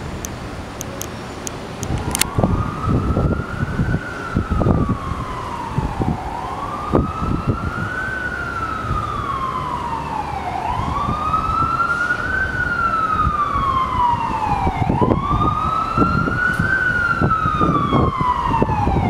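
A siren wailing, rising and falling in pitch about every four seconds, starting about two seconds in, over a gusty low rumble.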